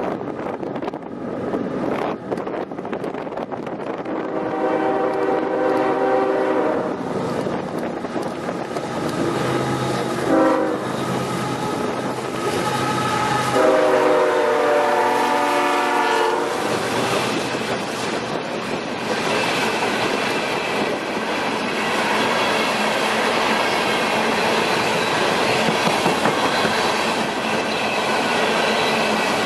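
CSX freight train led by a GE ES44AH and a GE AC6000CW blowing its multi-chime horn for a grade crossing: two long blasts, a short one, then a last long one as the diesel locomotives go by. After that comes the steady rumble and clickety-clack of open-top coal cars rolling past.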